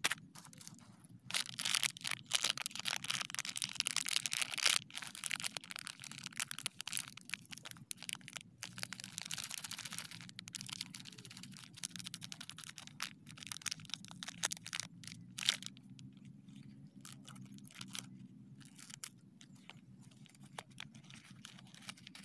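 Plastic snack wrappers crinkling, crackling and tearing as they are opened by hand, in irregular bursts with sharp crackles; the busiest stretches come about a second in and again around nine seconds in.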